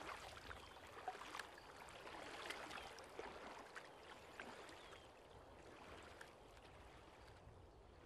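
Faint water sounds of kayak paddles dipping and dripping as a tandem kayak glides through calm water, with scattered light ticks and splashes, growing fainter in the second half.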